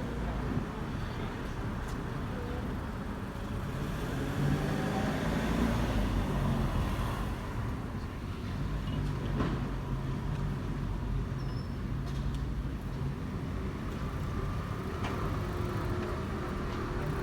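Street traffic: a motor vehicle's engine rumbling low and steady, swelling louder a few seconds in and then easing off.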